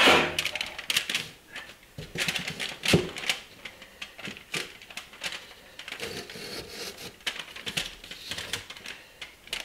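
Irregular clicks, knocks and scrapes of a foil-wrapped steel block and a fire brick being set and shifted on the floor of a small heat-treating kiln, with a sharper knock about three seconds in.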